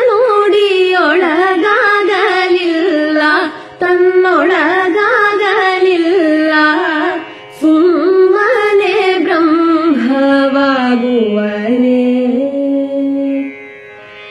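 A Kannada tattvapada devotional song sung in Carnatic style: a single melodic line with wavering, ornamented turns. It breaks briefly about four and seven and a half seconds in, then settles on a long, low held note that fades near the end.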